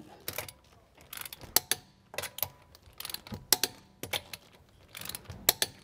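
Torque wrench on the wheel's lug bolts, giving short clusters of sharp metallic clicks about once a second as the bolts are brought to final torque of 105 to 110 foot-pounds.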